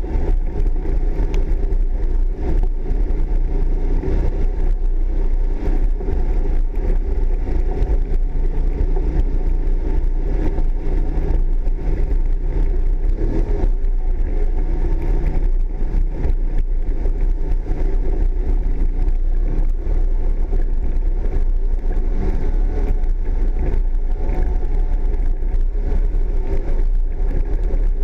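Polaris off-road vehicle's engine running steadily as it drives over a rough forest trail, with a strong, continuous low rumble.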